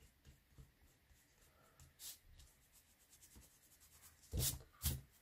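Foam blending sponge rubbing ink onto card stock in short scrubbing strokes: faint at first, then two louder strokes about half a second apart near the end.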